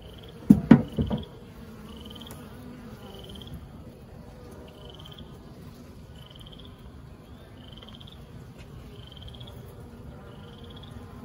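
Wooden hive frames knocking a few times about a second in as a frame is worked loose, over the steady low hum of honeybees. A short, high chirping trill repeats every second or so in the background.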